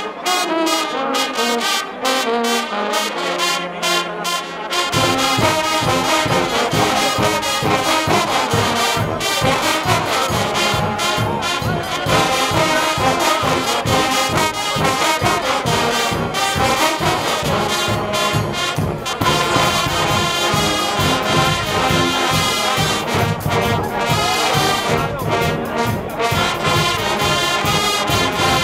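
A Guggenmusik carnival brass band playing loudly: trumpets and trombones over drums with a steady beat. The low end of the band, heavy bass and drum beats, comes in about five seconds in.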